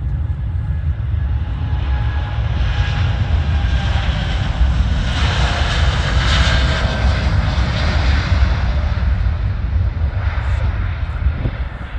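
KLM Boeing 787-9 twin-engine jet passing by. Its engine noise swells to a peak about six seconds in, then fades, with faint whining tones that slide lower as it goes past.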